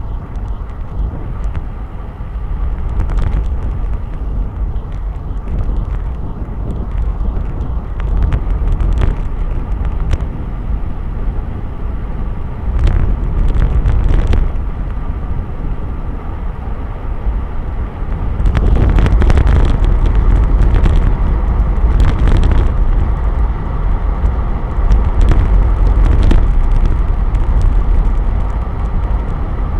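Wind buffeting the microphone of a camera on a bicycle descending at speed, a heavy low rumble mixed with road noise from the tyres, growing louder about two-thirds of the way through. Occasional sharp clicks and rattles from bumps in the road surface.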